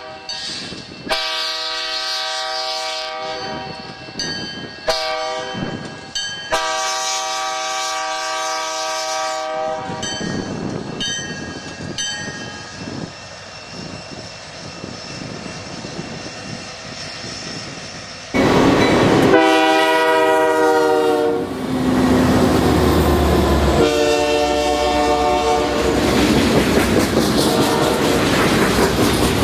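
Nathan K3-series five-chime locomotive air horn sounding several blasts, two long with short ones between, as a freight train rolls past. After a sudden change, another locomotive's horn sounds while passing, its chord dropping in pitch, then blows again over the loud rumble of the train.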